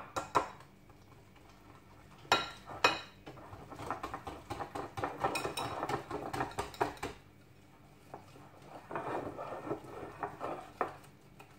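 Wire whisk beating pancake batter in a glass bowl: rapid clicking and scraping against the bowl in two stretches with a short pause between. A couple of sharp taps come a little over two seconds in.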